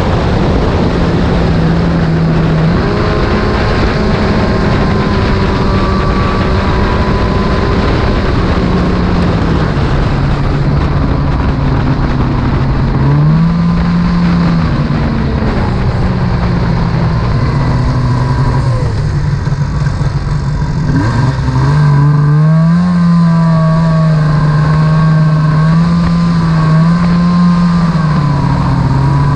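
Snowmobile engine running at speed under the rider, its pitch stepping up and down with the throttle and wavering faster in the last several seconds, over a steady rush of wind and track noise.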